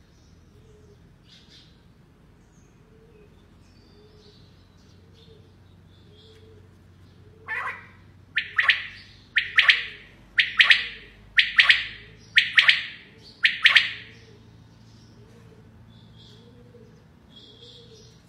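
Female common quail calling: a few faint soft chirps, then about halfway through a run of seven loud two-part calls, about one a second.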